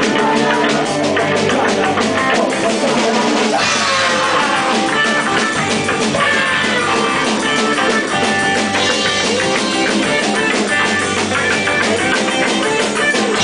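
Live rock band playing, with guitar and drum kit keeping a steady beat. The music swells about four seconds in.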